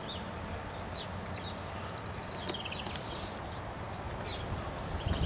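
Small songbirds chirping, with a rapid high trill that steps down in pitch about two seconds in and another trill near the end, over steady outdoor background noise.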